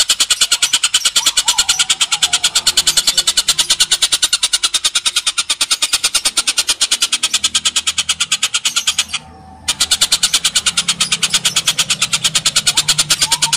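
Oriental dollarbird (tengkek buto) calling in a long, rapid, evenly paced harsh chatter, broken once by a short pause about nine seconds in.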